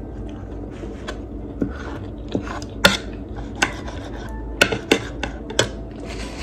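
Metal spoon clinking and scraping against a ceramic plate while food is scooped up: a series of sharp, irregular clinks over a low steady hum.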